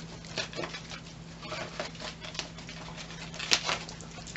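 Wrapping paper crinkling and tearing in irregular rustles as a Shetland Sheepdog tugs and chews at it, with one sharper crackle about three and a half seconds in.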